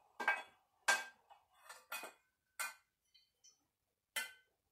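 Metal pan clanking and ringing about six times as a black powder rifle's muzzle is tipped down into it to drain the cleaning water from the barrel.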